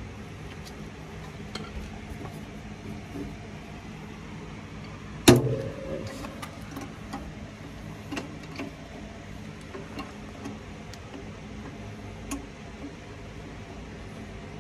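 Small metallic clicks and taps from hand work on a seized coilover's threaded adjuster collar, with one loud metal clang about five seconds in that rings briefly.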